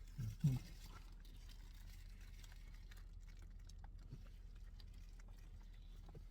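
A low steady hum with two short murmured voice sounds about half a second in, then only faint scattered clicks.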